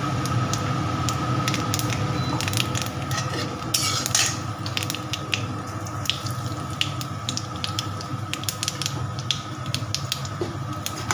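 Nigella seeds and dried red chillies sizzling and popping in hot oil in a kadai as they temper, with many sharp crackles and a denser burst about four seconds in. A metal spatula scrapes the pan now and then, over a steady low hum.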